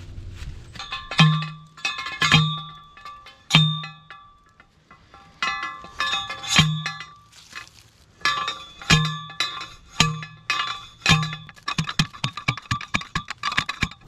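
Hand post driver pounding a steel T-post into the ground: about eight heavy metallic clangs, each with a dull thud and a ringing tone, a second or so apart with a few pauses. Near the end comes a quick run of lighter metal clinks.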